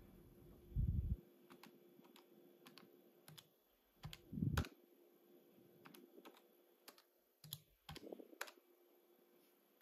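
Buttons of a Casio fx-9750GII graphing calculator being pressed one by one: faint, scattered plastic key clicks, with a few heavier thumps about a second in, around four and a half seconds, and near eight seconds.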